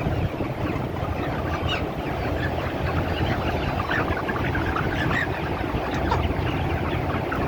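A large flock of broiler chickens calling all at once, a dense, steady chatter of short overlapping calls over a constant low hum.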